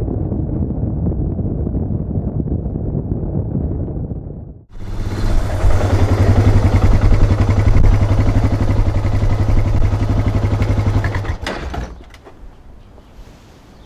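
Suzuki DR650's single-cylinder engine, fitted with a ProCycle jet kit and 150 main jet: first a muffled engine-and-wind sound while cruising on the highway, then, after a sudden cut, the engine running steadily close by until it is switched off about 11 seconds in, followed by a few light clicks.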